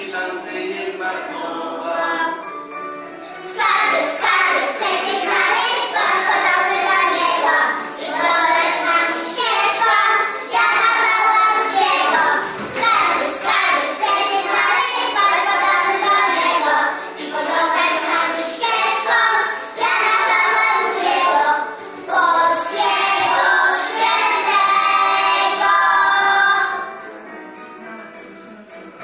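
A group of young children singing a song together in unison, with jingling percussion. The singing stops about two seconds before the end.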